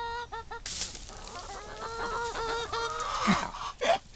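Several hens clucking and calling while they scramble to peck up crickets: quick short clucks, then longer drawn-out calls, with two louder short calls near the end.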